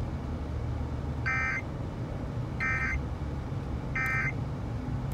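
Emergency Alert System end-of-message data tones from a car radio's speaker: three short, identical buzzing bursts a little over a second apart, which close a broadcast flash flood warning. A low, steady rumble of the car runs underneath.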